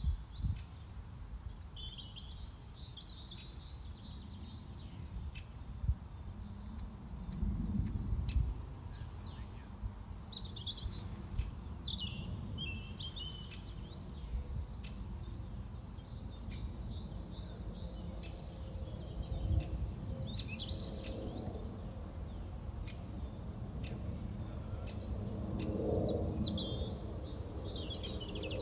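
Birds chirping and singing again and again over a steady low outdoor rumble, with a few faint scattered clicks.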